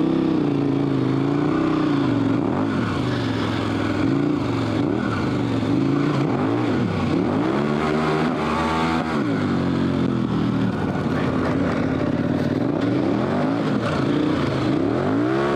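KTM 1190 Adventure R's V-twin engine revving up and down over and over as the motorcycle is ridden off-road through sand and wet dirt.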